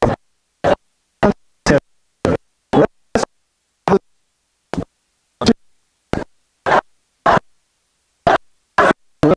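Choppy, broken-up audio: brief fragments of sound, about two a second at uneven intervals, each starting and stopping abruptly with dead silence between them.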